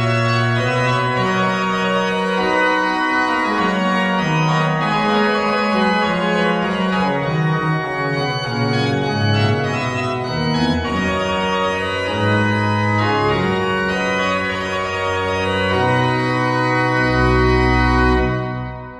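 Sampled Mascioni pipe organ, played through virtual organ software: a piece in held chords and moving lines. A deep bass note joins near the end, then the final chord is released and dies away in a reverberant tail.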